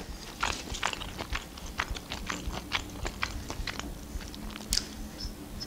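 A woman chewing a mouthful of pelmeni dumplings and mushroom salad close to the microphone: a steady run of small wet mouth clicks, with one sharper click near the end.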